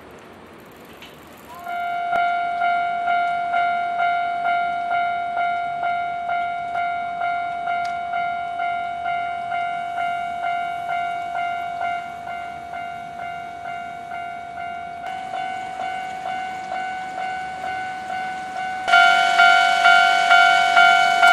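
Japanese railroad crossing warning bell starting up about two seconds in and ringing in a steady, evenly repeating clang, signalling that a train is approaching. Near the end it becomes louder, with a second bell of slightly different pitch ringing along with it.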